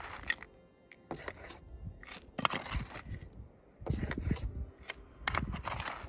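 A hand digging tool scraping and chopping into hard, stony ground, about five strokes a second or so apart, as a shallow metal-detector target is dug out.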